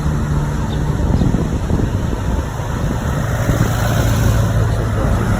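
A bus's engine running as it goes by on the road, with traffic noise. Heard as a loud, steady low rumble and hum.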